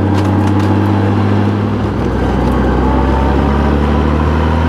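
Honda GL1800 Gold Wing's flat-six engine running steadily on the move, its note climbing gently in the second half, over wind and road noise.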